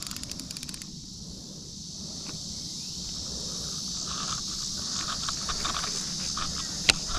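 Steady high-pitched drone of insects, with a quick run of clicks in the first second, scattered rustling and ticks, and one sharp click near the end.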